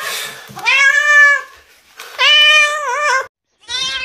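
Domestic cats meowing: two drawn-out meows of about a second each, the second one wavering up and down in pitch, then after a brief break another meow begins near the end.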